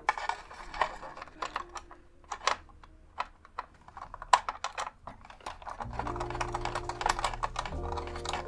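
Background music, its bass notes coming in about six seconds in, over irregular sharp clicks and taps of small plastic parts and tools being handled as a radio is taken apart.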